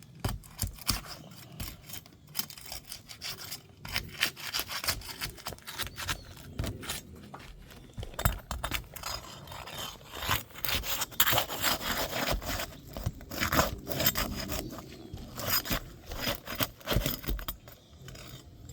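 Elk Prestique 30 architectural asphalt shingles being worked loose with a tool: repeated irregular scraping and rubbing with sharp clicks as the sealant bonds are broken and the nails are pried out, busier in the second half.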